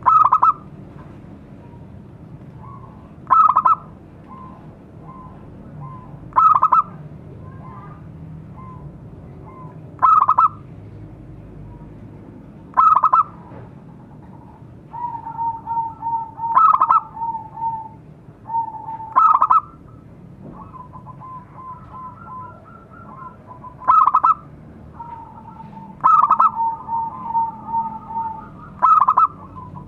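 Zebra dove cooing: a short, loud call about every three seconds. From about halfway through, softer runs of quick staccato coos fill the gaps between the calls.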